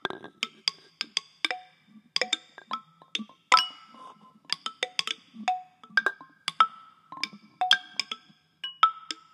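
Lydes, handheld found-object instruments, struck in an irregular, sparse pattern of clicks and taps. Many strikes leave a short, bright ringing pitch, and several layered takes overlap. The loudest strike comes about three and a half seconds in.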